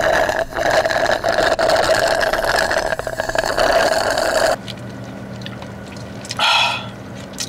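A long drink of Dr Pepper sucked up through a straw from a lidded cup: a steady sucking noise that lasts about four and a half seconds and cuts off suddenly. A brief breathy sound follows near the end.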